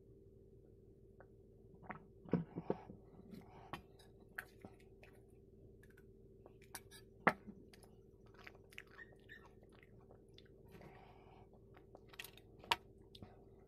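Close-up mouth sounds of eating and drinking: water sipped and swallowed, then chewing of puri, with scattered wet clicks and smacks. There are a few sharp knocks, the loudest about seven seconds in. A faint steady hum runs underneath.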